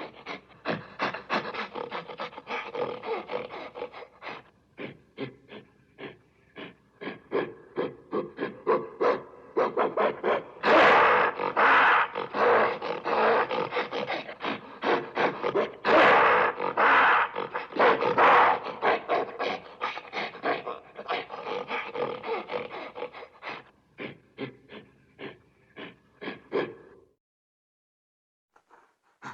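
Gorilla calling in a long, rapid series of short breathy grunts or hoots, several a second. The calls grow louder in the middle, then taper off and stop a couple of seconds before the end.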